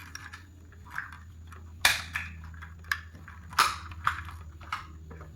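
Plastic wire-retaining clips on a truck's cargo and third brake light housing being unclipped: a series of sharp plastic clicks and snaps, the two loudest about two and three and a half seconds in.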